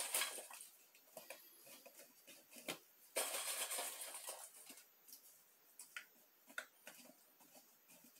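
Pieces of bark rustling and scraping as gloved hands take them from a stainless-steel bowl and set them into a glass jar, with light clicks and knocks against the glass and the bowl. Two louder spells of rustling come at the start and about three seconds in.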